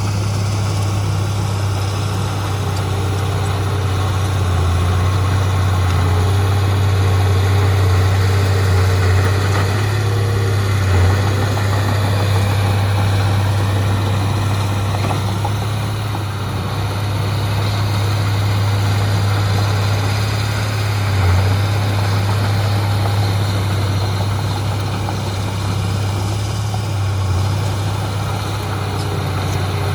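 Heavy diesel engine of earthmoving machinery running steadily, a deep even drone with small surges now and then.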